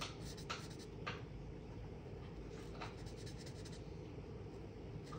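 Alcohol marker tip rubbing on cardstock in short colouring strokes. It is faint, with a few sharper strokes in the first second and again around three seconds in.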